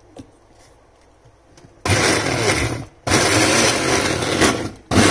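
Electric mixer grinder (mixie) with a steel jar grinding mint, coriander and green chillies for chutney, run in short pulses: it starts about two seconds in, stops briefly twice, and starts again near the end.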